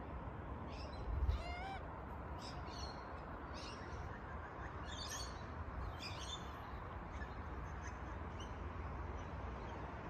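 Faint bird calls: scattered short high chirps, and one whistled note that slides down about a second and a half in, over a low rumble. A soft low bump about a second in is the loudest moment.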